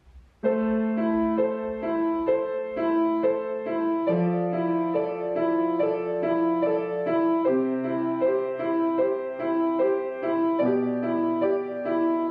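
Upright piano being played: a repeating broken-chord figure over held bass notes, the bass note changing about every three seconds. It starts about half a second in.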